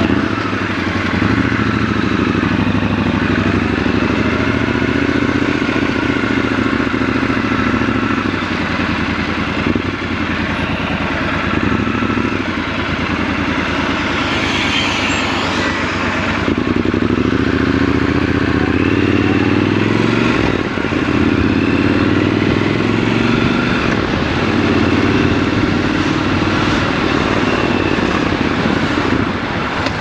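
Triumph Scrambler 1200 XC's parallel-twin engine running at low city speeds, heard from the rider's seat: idling and light throttle, with the engine note changing a little past halfway as the bike moves off again.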